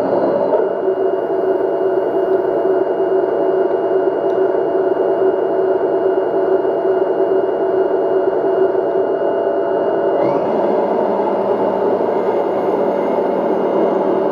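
RC tank electronic sound unit playing a steady simulated tank engine running sound through its small speaker, with a higher hiss joining about ten seconds in.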